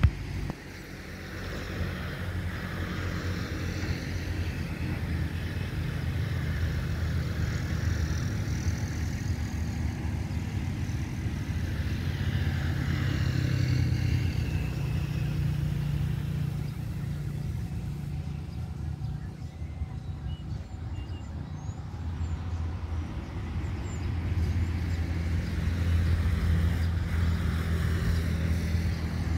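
Steady low engine rumble, with road vehicles swelling and fading as they pass by about three times.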